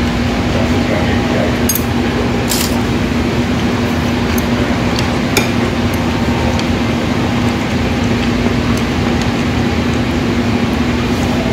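Steady eating-place room noise with a constant hum, broken by a few sharp clinks of a metal spoon against bowls and dishes, most of them in the first half.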